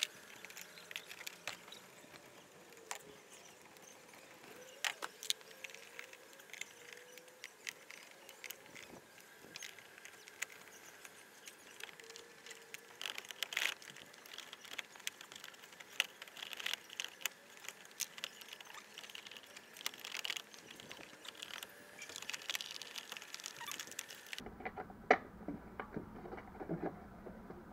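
Faint, rapid clicks and rustles of hands working the plastic and fabric parts of an electric scooter's handlebar cover as it is taken off. The sound changes abruptly about 24 seconds in.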